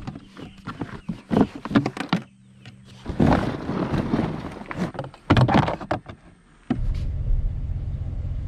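Clicks, clunks and rustling of gear being handled on a kayak deck as a trolling-motor battery box is fitted. Near the end this gives way to the steady low drone of a pickup truck's engine running, heard from inside the cab.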